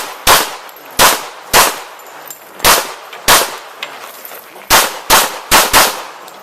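Pistol shots fired at a practical-shooting stage: about nine sharp reports at an uneven pace, singles and quick pairs, with two fast pairs near the end.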